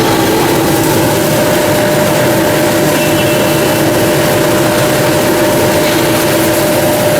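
PET plastic washing machine running steadily: a loud, unbroken machine noise with a constant two-note hum.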